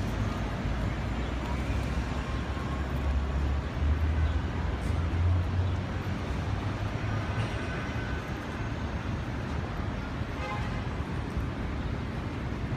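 City street traffic noise: a steady wash of passing vehicles, with a low engine rumble that swells about three to six seconds in and then eases off.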